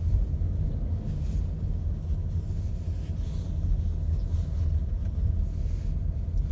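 Steady low rumble of a car driving slowly, heard from inside the cabin: road and engine noise.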